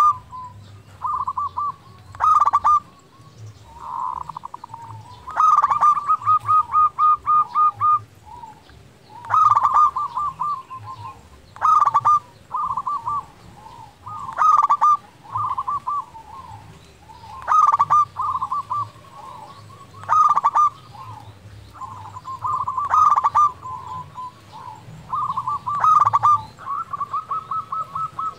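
Zebra dove (perkutut) singing: repeated cooing phrases every two to three seconds, several with long runs of quick stuttering notes. This is the frequent, full song that keepers call gacor.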